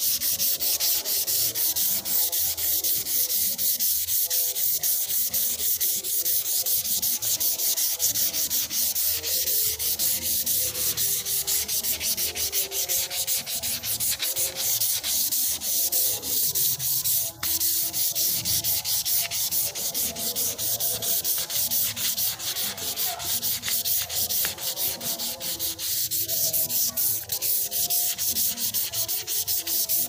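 A sheet of 320-grit sandpaper is rubbed by hand over a wooden slab table top. It makes a dry, high scratching hiss in quick, even back-and-forth strokes that keep going throughout.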